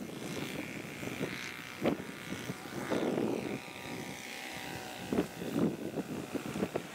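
Engine and propeller of a radio-controlled model biplane running steadily as it takes off and climbs away. Gusts of wind on the microphone sound several times.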